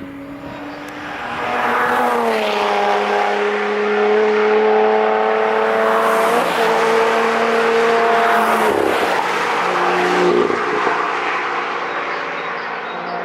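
Cars passing at speed at high revs, their engine notes stepping and sliding in pitch as they go by. The sound grows louder over the first two seconds and eases near the end.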